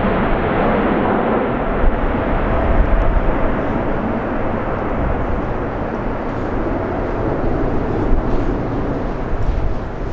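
Boeing 747-8F freighter climbing out after takeoff, its four GEnx turbofans a steady, deep jet rumble that eases off slightly as the aircraft draws away.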